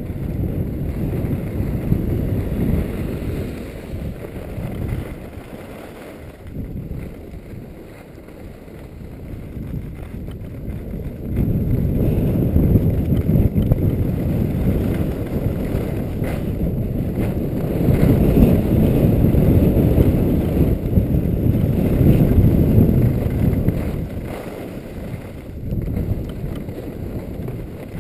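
Wind buffeting the skier's camera microphone during a fast run down a groomed ski slope: a low, noisy rumble. It eases off between about 5 and 10 seconds in, then is loudest from about 11 to 24 seconds in.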